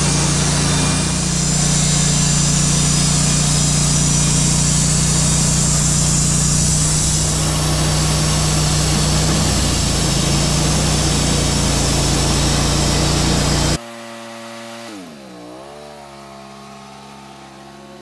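EZ Boardwalk 40 bandsaw mill under full throttle, its gas engine running at a steady high speed while the band blade saws lengthwise through a log. About 14 seconds in the loud sawing cuts off suddenly, leaving a much quieter engine whose pitch dips once and then settles into an idle.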